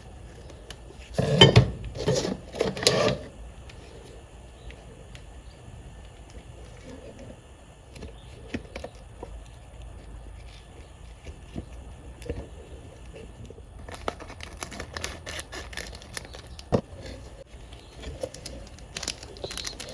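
Plastic packaging rustling and tearing, with small clicks and knocks of items being unpacked and handled. It is loudest in a burst of rustling between about one and three seconds in, and busier again in the last few seconds.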